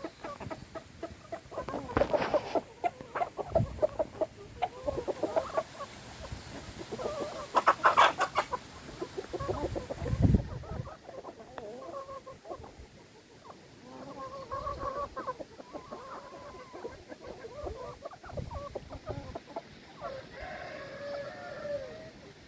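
Chickens clucking and calling in a flock, with louder bursts of calls a couple of times and a few dull thumps.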